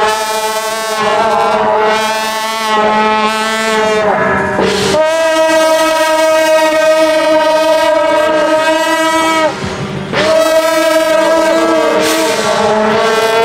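Loud wind-instrument music playing long held notes over a steady low drone, the melody note changing about four seconds in and again about nine and a half seconds in.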